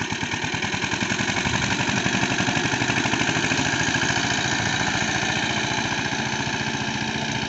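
Small tractor's engine chugging with a fast, even beat as it hauls a trolley fully loaded with soil. It grows louder as it comes past, then eases off a little as it pulls away.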